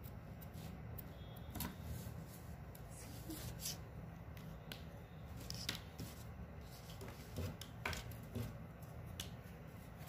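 Faint scattered clicks, taps and scratches of hands working felt-tip sketch pens on a painted dry stick: pen strokes, and the pens and stick being handled on a table, over a low steady hum.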